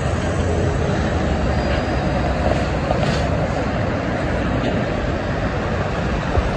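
Steady traffic noise from a busy multi-lane freeway: tractor-trailers and cars passing, engines and tyres on the pavement, with a short thump near the end.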